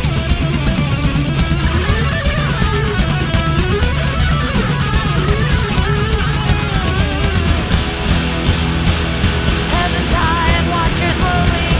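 Loud guitar-driven rock music with a wandering guitar line over bass and drums; the cymbals get brighter for a couple of seconds about two-thirds of the way in.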